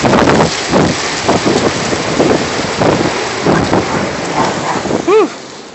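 Strong wind gusting and buffeting against a phone's microphone, easing toward the end. About five seconds in, a brief squeak rises and falls in pitch.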